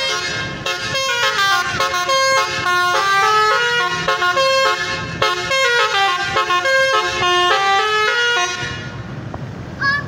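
Telolet horn of a Jetbus 5 tour coach playing a fast tune of short stepped notes in falling and rising runs, stopping about eight and a half seconds in. Traffic noise is left under it afterwards.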